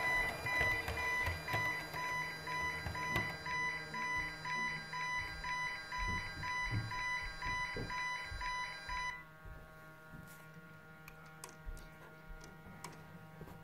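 Model railway level crossing's electronic warning alarm beeping about twice a second, cutting off about nine seconds in; a model train runs under it at first. After the alarm stops, a few light clicks of a hand handling the model crossing.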